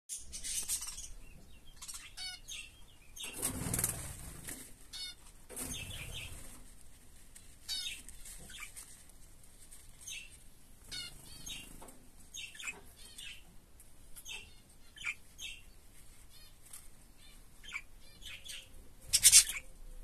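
Young budgerigar chicks chirping with short, high squeaks again and again, with bursts of rustling in between; the loudest rustle comes near the end.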